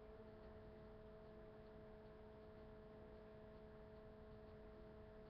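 Near silence: room tone with a faint steady hum of two or three constant pitches.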